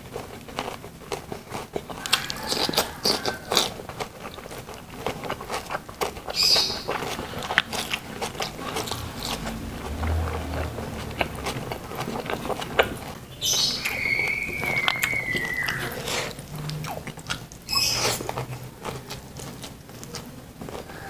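Close-miked eating sounds: a person chewing a mouthful of rice with stir-fried green beans and corn, eaten by hand, with many small lip smacks and mouth clicks.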